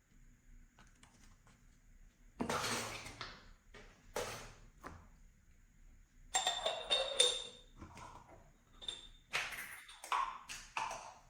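Intermittent handling sounds while slime is being mixed: a rustle a couple of seconds in, a few short taps, then a run of clinks with a brief ringing note in the middle, and more taps and rustles near the end.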